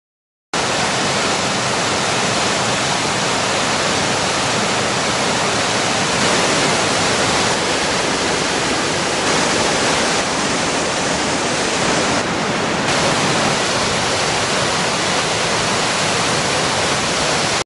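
Waterfall rushing: a loud, steady roar of falling water that cuts in suddenly about half a second in.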